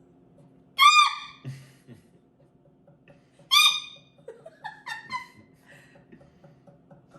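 A person imitating jungle bird calls with their voice: two short, high hooting calls about three seconds apart, then a quick run of short rising chirps.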